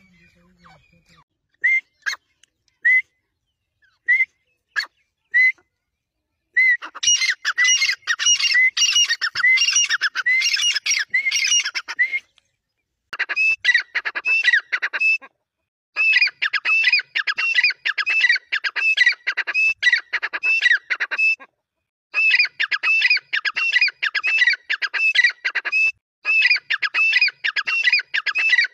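Grey francolin calling: a few single short notes at first, then from about six seconds in, fast, loud runs of repeated ringing call notes in bouts of several seconds separated by brief pauses.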